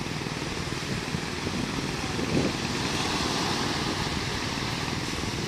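Surf washing onto a sandy beach with wind rushing over the microphone, a steady noise that swells a little about three seconds in.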